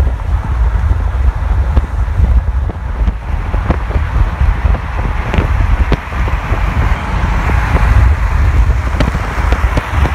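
Wind buffeting the microphone over the road noise of a car at highway speed, a constant heavy rumble, with a few brief sharp clicks.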